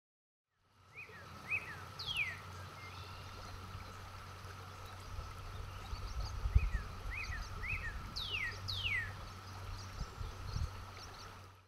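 Outdoor nature ambience: birds give short chirps and a few quick falling whistles over a steady low rumble and a constant high hum, with a few low thumps. It starts about a second in and cuts off just before the end.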